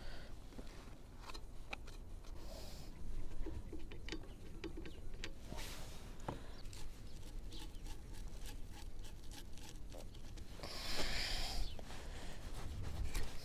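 Scattered light clicks and scrapes as a Hangkai 4 hp outboard's removed powerhead and carburettor are handled, with a brief rustling hiss near the end.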